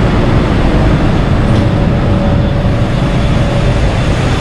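Steady, loud rumble of vehicle engines and traffic, with a faint steady whine in the middle.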